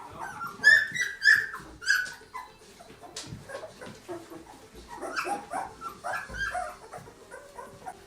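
Twelve-day-old Goldendoodle puppies whimpering and squealing in short high-pitched cries. The loudest cries come in the first two seconds, followed by a run of softer ones later on.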